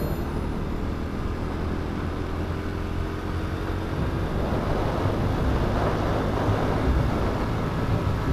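Honda Supra underbone motorcycle's single-cylinder four-stroke engine running steadily while riding, with a rushing noise of wind and road that grows louder about four seconds in.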